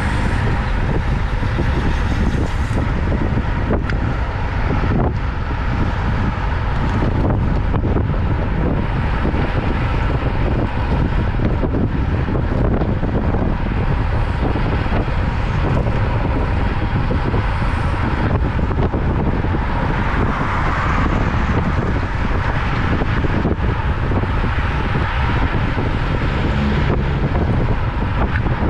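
Wind buffeting the microphone while riding a road bicycle, a steady low rumble mixed with road and traffic noise.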